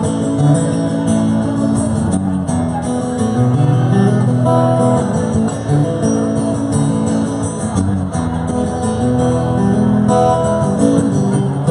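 Live music: an instrumental break between verses of a reggae-flavoured song, with strummed guitar to the fore over a steady rhythm.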